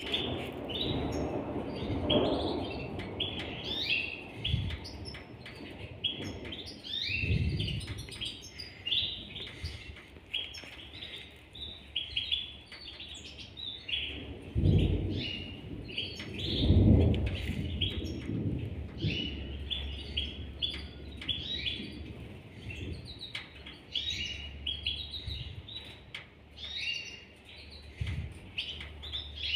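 Gloster canary nestlings begging with rapid, high, short chirps that go on throughout while they are hand-fed through a feeding tube. A few dull knocks come in between, the loudest about 15 and 17 seconds in.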